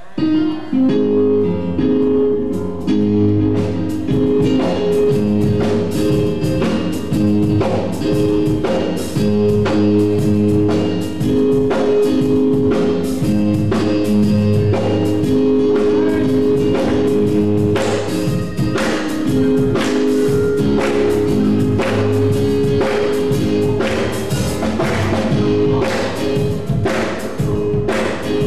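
Live gospel band playing: sustained keyboard chords over a steady drum-kit beat.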